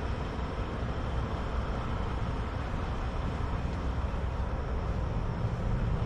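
Steady low rumble of distant vehicles, with a faint even hum on top and no distinct nearby events.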